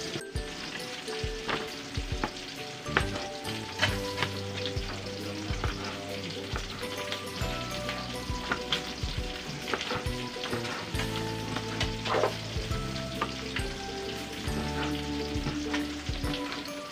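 Kitchen knife slicing green beans on a plastic cutting board, with quick irregular taps of the blade on the board over a steady hiss.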